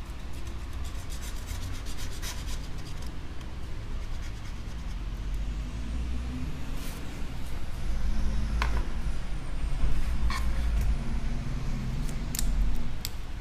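A hand tool scraping and rubbing old adhesive off an iPad Air's metal frame, with scattered small clicks and ticks over a steady low rumble.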